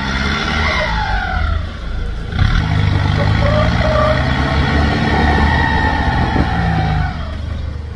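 Off-road Troller 4x4's engine running under load and revving as it climbs a deep-rutted dirt trail, louder from about two and a half seconds in to near the end, with a higher whine that rises and falls over it.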